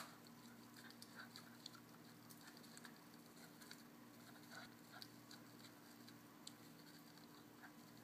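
Faint, irregular little clicks and squeaks of a dog mouthing and chewing a tennis ball, over a faint steady hum.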